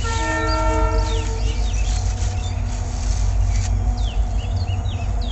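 A horn sounds once for about a second and a half at the start, several steady tones held together, over a steady low rumble. Birds chirp throughout.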